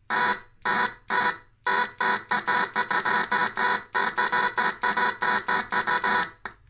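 Geiger counter beeping as it detects X-rays from a rotating-anode X-ray tube pulsed at about 20 kV. There are three separate beeps, then a fast run of about four beeps a second that stops shortly before the end.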